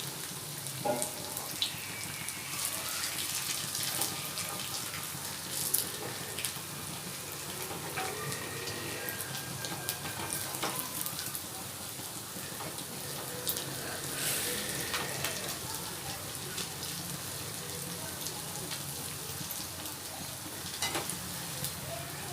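Aloo vadas (besan-battered potato balls) deep-frying in hot oil in a kadhai: steady sizzling with scattered pops and crackles.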